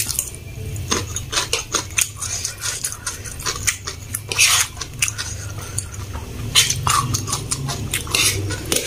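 Close-miked eating of instant noodles: wet chewing and mouth smacks in short, irregular clicks, with a metal fork now and then tapping the plate.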